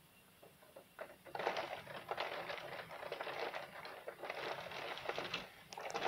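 Heavy rain pattering in a crackly rush that swells and fades with the gusts of wind. It is faint for the first second, rises sharply after about a second and dips briefly near the end.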